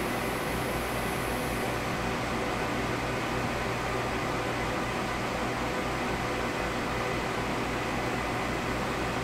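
HP ProLiant ML350 G5 server running, a steady whir of cooling fans with several faint steady hum tones.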